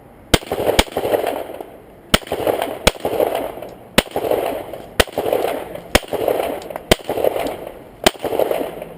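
A Glock pistol firing a string of about nine single shots, the first two in quick succession and the rest roughly one a second, each shot followed by a rolling echo.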